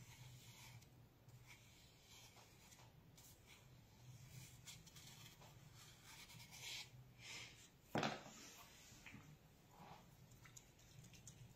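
Near silence, with faint rustles and taps of a paintbrush and hands working on paper, and one light knock about eight seconds in.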